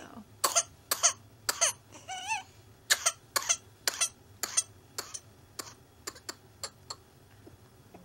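An infant with whooping cough (pertussis) in a paroxysmal coughing fit: a long, rapid run of short hacking coughs, about two to three a second, with a brief high wavering sound about two seconds in. The coughs weaken toward the end.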